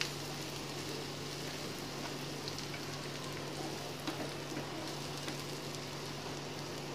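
Onion and spice masala sizzling steadily in hot oil in a pan as it is fried down (koshano), stirred with a spatula, with a couple of faint clicks about four and five seconds in. A steady low hum runs underneath.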